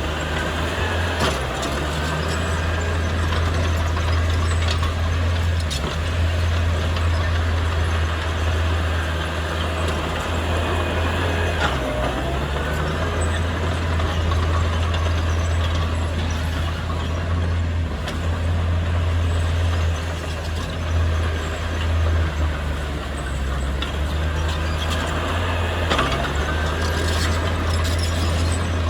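A heavy diesel engine of earthmoving machinery running at work: a steady low drone that dips and swells with the load. Scattered clicks and short squeaks sound over it.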